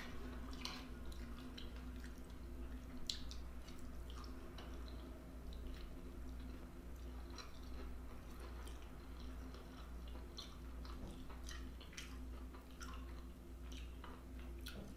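A person chewing food close to the microphone, soft wet mouth clicks scattered throughout, over a faint steady low hum.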